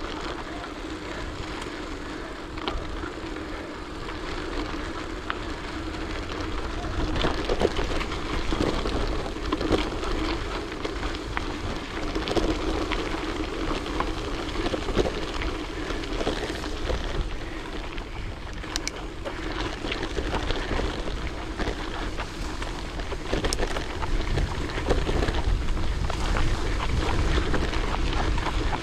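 Bicycle ride noise: wind rumbling on the microphone over the steady hiss of tyres rolling on the road, with scattered small clicks and ticks. It grows a little louder near the end.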